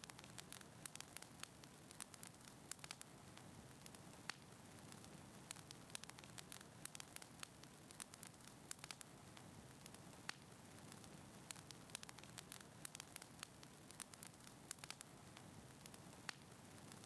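Faint crackling of a wood fire in a fireplace: irregular sharp pops and snaps over a soft steady hiss.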